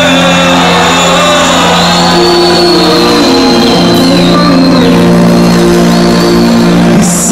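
Live band playing loud through a concert PA: an instrumental passage of long held notes, with a higher melody line sliding above them.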